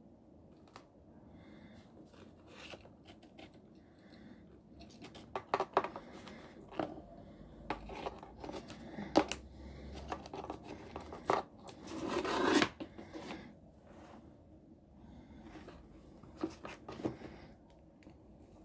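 Hands handling small parts on a tabletop: scattered light clicks and taps with short rubbing and scraping of wires and leads, and a longer scrape about twelve seconds in.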